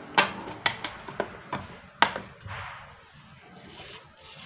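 About six sharp clicks and knocks of dishes being set in place on the counter in the first two seconds, then soft rustling of a hand working into crumbly semolina dough.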